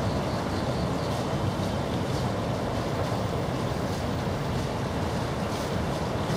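Steady outdoor background noise: a low rumble with a faint hiss above it.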